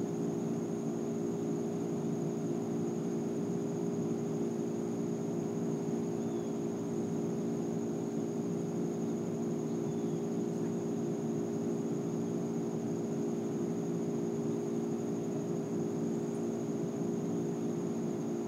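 Steady mechanical hum with a faint high whine above it, unchanging throughout.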